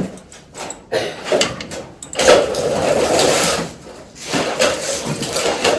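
Scraping and clattering of hand tools against metal parts, in two spells of about a second and a half each, with a few short knocks before them.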